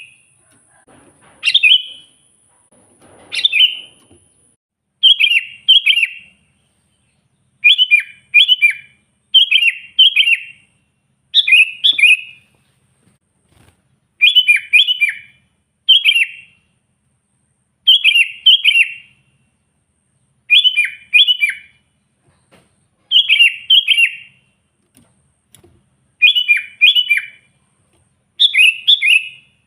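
Sooty-headed bulbul (kutilang) singing: short bright phrases of two or three quick notes, repeated about every one and a half to two seconds.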